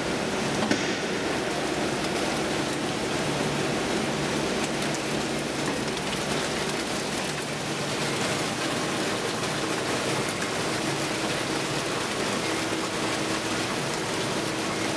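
N&N Mixer Cooker 1600S running: a steady rushing hiss with a faint low hum underneath.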